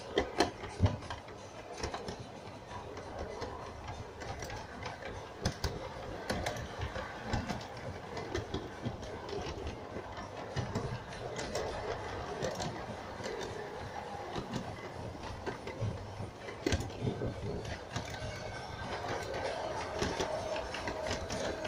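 LGB G-scale model train running along its track, heard from on board: a steady mechanical running noise with frequent irregular clicks and knocks of the wheels over the track.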